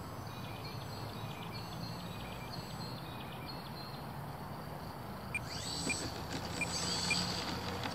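Faint whine of the small electric motor of an H-King Cessna TTX RC plane as it comes in to land over steady outdoor rumble. From just past the middle come footsteps through grass, about two a second.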